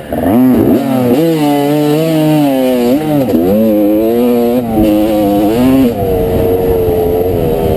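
1989 Honda CR250R's two-stroke single-cylinder engine revving hard under racing throttle, its pitch dropping and climbing again several times through a corner, then holding high and steadier on the straight near the end.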